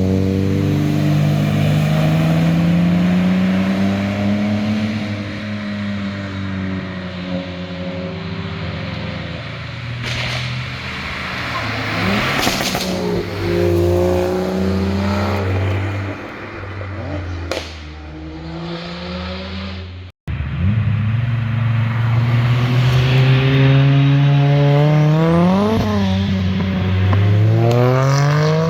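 Sports car engines passing at speed one after another, their exhaust notes rising and falling through gear changes. Near the end an engine revs sharply upward as it accelerates. There is a brief drop-out about two-thirds of the way through.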